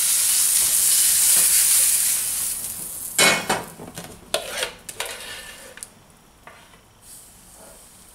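Butter sizzling loudly in a hot frying pan, the hiss dying down over the first few seconds. From about three to five seconds in comes a quick run of scraping and clinking as a spoon stirs and knocks in a mixing bowl of pancake batter.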